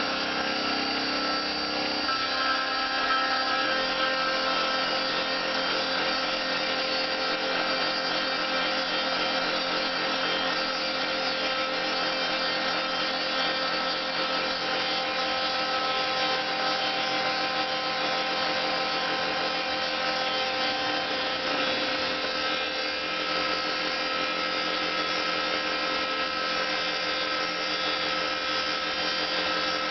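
Homemade CNC mill running: the spindle motor runs steadily while the axis stepper motors drive the cut, making a steady machine whine with several held tones. The mix of tones shifts about two seconds in and again midway.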